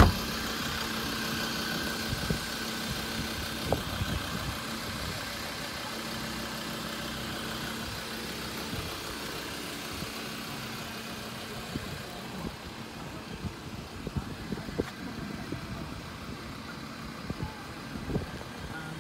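A pickup door shuts with a thump right at the start. After it the Ford Ranger's engine idles with a steady hum that fades out about twelve seconds in, and a few light knocks follow near the end.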